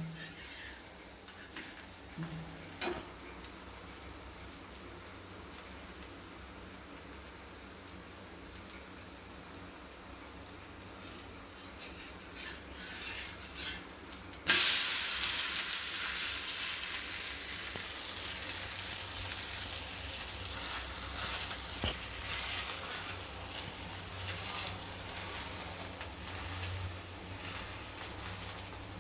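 Multigrain dosa frying on a hot iron tawa: a faint sizzle that jumps suddenly about halfway through to a loud, crackly sizzle as the dosa cooks and browns.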